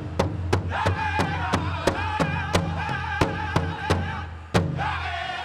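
Pow wow drum group playing a chicken dance song: a large drum struck in unison about three beats a second under high-pitched group singing. The drumming stops about four and a half seconds in after one loud final beat, while the singing carries on.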